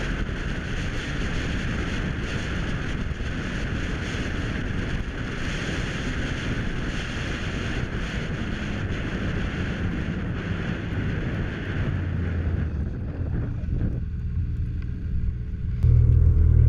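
A snowmobile running at speed across open snow, its engine drone mixed with heavy wind rush on the microphone. About two seconds before the end the wind rush falls away as it slows, and a louder, steady low hum of snowmobile engines idling takes over right at the end.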